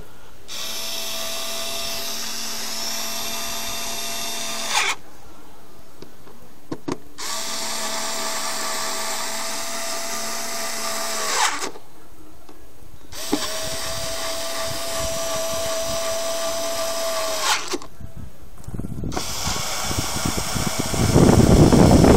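Small cordless screwdriver driving the screws of a car's plastic air-filter housing cover. Three steady whirring runs of about four seconds each, with short pauses between, then a fourth run near the end that turns into a louder rattle.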